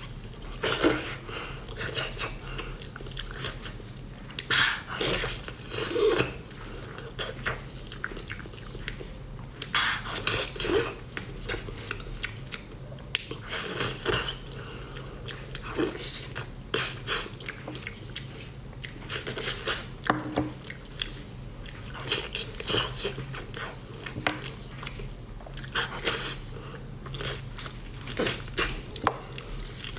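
Close-up wet chewing, biting and lip-smacking of a person eating braised pig's trotters, tearing the soft skin and meat off the bone. The smacks come in irregular clusters over a low steady hum.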